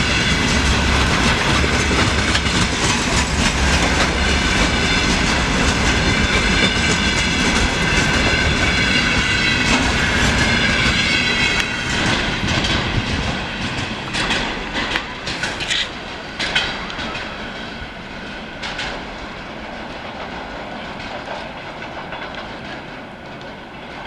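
Freight wagons of a container train rolling slowly on the rails, wheels clacking over the rail joints, with a high steady whine over the first half. About halfway through it gets quieter, leaving scattered clacks.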